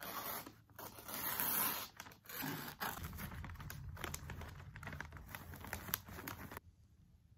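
Scissors cutting a sheet of wrapping paper, then the paper rustling and crinkling as it is folded and rolled around a small gift. The crinkling comes in uneven bursts and stops suddenly near the end.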